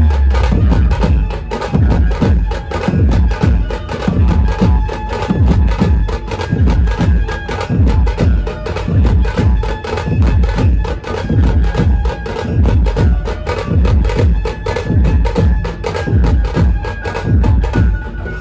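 Dhumal band music: fast, heavy drumming with a thin, reedy melody line held over it, played loud.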